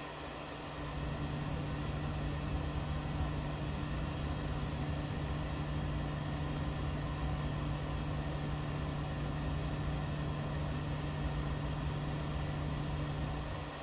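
Substation power transformer humming: a steady low electrical drone with a faint higher overtone over a low rumble. It swells louder about a second in and drops back shortly before the end.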